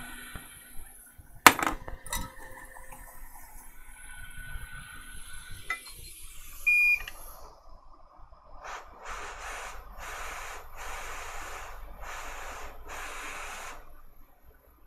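Two sharp clicks, then a short high beep about seven seconds in. This is followed by about five hissing bursts of air, each roughly a second long, from a hot air rework station at the board.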